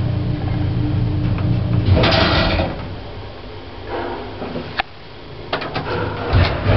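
An original 1960s J&E Hall service lift: a steady machinery hum for the first two seconds, then a short scraping slide of the lift door about two seconds in. Several sharp clicks and a knock follow near the end.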